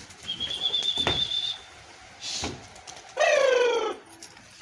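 Domestic pigeons at a loft. A thin, high, steady whistle about a second long comes early, then a short flutter, then near the end a loud falling call with a rich, layered tone.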